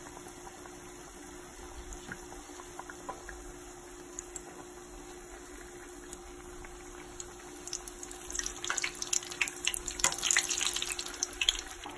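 Ring doughnuts deep-frying in hot oil: a steady sizzle with scattered small pops, growing into dense crackling about eight seconds in as a slotted metal skimmer turns them.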